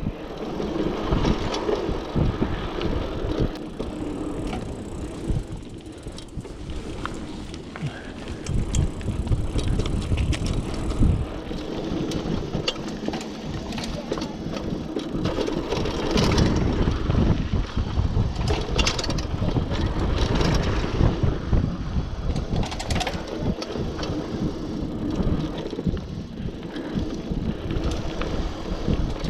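Mountain bike riding down a dirt trail: continuous rumble of knobby tyres over the ground, with scattered clicks and knocks as the bike rattles over bumps and drops.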